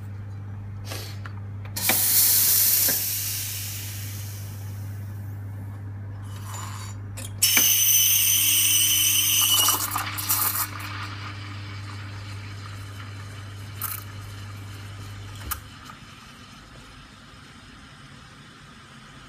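Espresso machine's pump humming steadily during an espresso extraction, stopping with a click a few seconds before the end. Steam wand hissing twice: a short burst about two seconds in, then a louder hiss with high tones in it for about two and a half seconds as milk is steamed in a steel pitcher.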